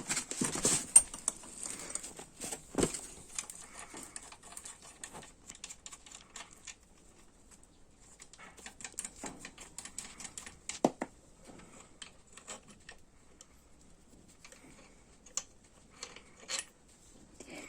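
Metal tools and bolts clicking, clinking and knocking in irregular bursts while an engine is being unbolted. The clicks are densest in the first few seconds, with a single louder knock near the middle.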